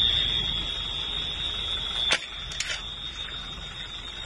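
A steady, high-pitched electronic alarm tone sounds over low rumbling background noise. It cuts off suddenly with a click about two seconds in, leaving quieter background noise with a few faint clicks.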